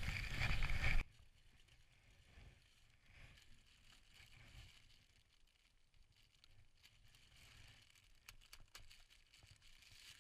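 Wind and movement noise from walking through snow, cut off abruptly about a second in. Then a quiet stretch of faint rustling of a plastic bag being handled, with a few sharp crinkles or clicks near the end.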